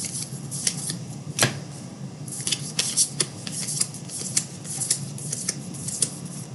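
Trading cards being flipped and slid against one another by hand: an irregular run of quick, dry flicks and rubs, with one sharper click about a second and a half in, over a low steady hum.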